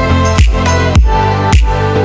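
Background music: an electronic track with a steady beat, a little under two beats a second, over held notes.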